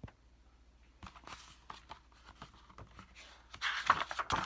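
Hands handling a picture book: faint paper rustles and taps, then a louder rustle of a page being turned near the end.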